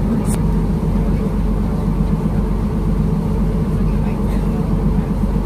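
Twin Scania straight-six 12-litre diesel engines of a large catamaran running under way, a steady low drone with no change in pitch.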